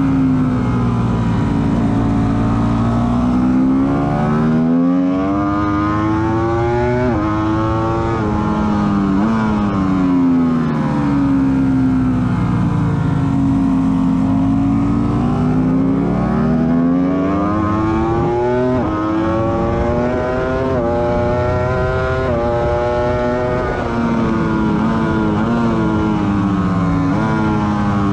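Ducati sportbike engine heard onboard at racing speed, its pitch climbing under hard acceleration and dropping sharply at several quick upshifts, then falling away as the bike slows for corners, with steady wind rush.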